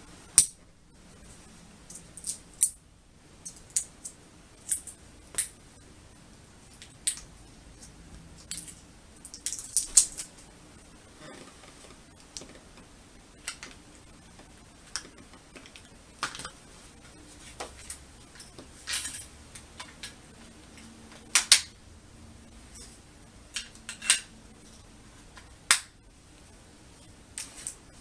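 Irregular sharp clicks and clatter of small hard objects being handled, a few dozen scattered at uneven intervals, some much louder than the rest.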